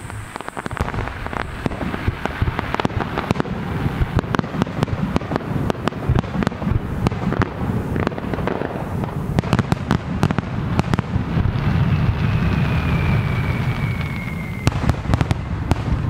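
Aerial fireworks shells bursting in rapid succession: many sharp bangs and crackles over a continuous low rumble. A thin whistle that falls slightly in pitch sounds for a couple of seconds about three-quarters of the way through.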